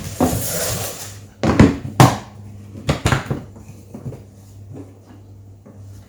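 Handling noise from the parts of a 12V air compressor kit in a toolbox: a rustle, then several sharp knocks and clatters as pieces are lifted and set down, trailing off into quieter fiddling.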